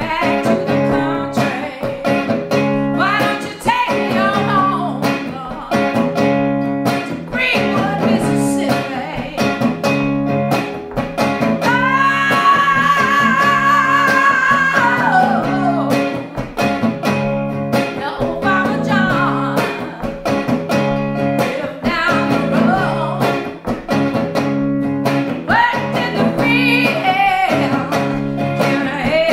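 A woman singing a song solo over her own hollow-body electric guitar, played in a steady repeating rhythm. About midway she holds one long, high sung note, then goes back to shorter sung lines.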